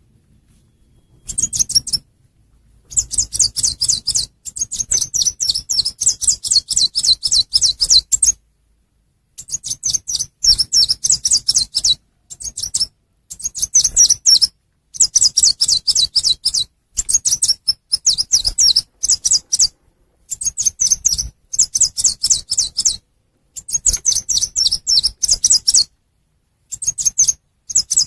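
Recorded lure call of the chim sâu xanh, a small songbird: rapid runs of high, thin chirps, each run lasting one to four seconds, with short pauses between them. It is played to draw wild birds to a trap.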